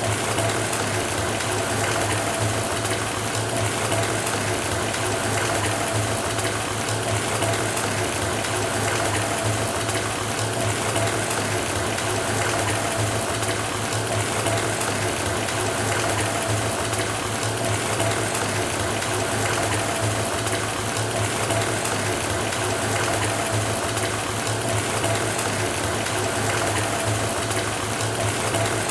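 Water pouring steadily from a faucet into a filling bathtub, a constant rushing splash with a low steady hum underneath.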